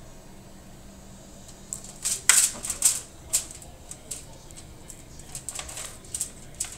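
A knife and fork cutting through smoked pork ribs on a foil-lined sheet pan. Starting about two seconds in, there is an uneven run of sharp clicks and crinkles as the blade and tines hit the foil, loudest just after they begin.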